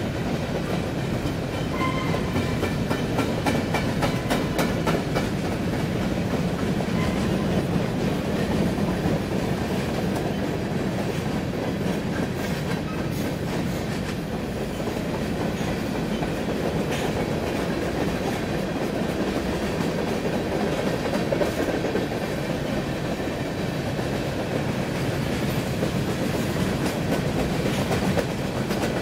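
Covered hopper cars of a freight train rolling past at a steady speed: a continuous rumble of steel wheels on rail, with clickety-clack as the wheels cross the rail joints.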